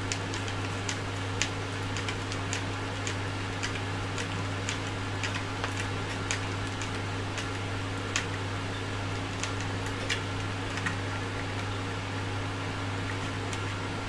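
A steady low hum with light, irregular clicks and ticks, about one or two a second, from small screws and a hand tool being handled while screws are driven into the plastic LCD housing.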